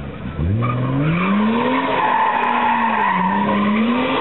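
BMW E30 drifting on tarmac. The engine revs drop briefly at the start, then climb steeply and stay high, wavering with the throttle. The rear tyres squeal from about halfway through.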